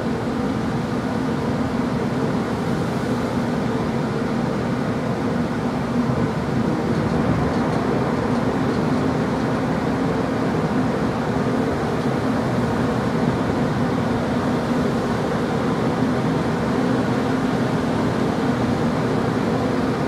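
Shipboard machinery of the research vessel R/V Knorr running: a steady droning hum over an even noise.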